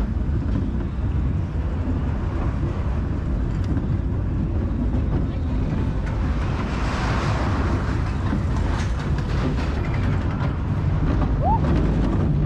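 Alpencoaster roller coaster train running on its track: a steady low rumble with a swell of rushing noise about halfway through and a brief rising squeal near the end.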